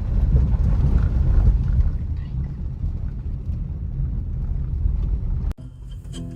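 A car driving, with a steady low road and engine rumble. About five and a half seconds in it cuts off abruptly and quiet guitar music begins.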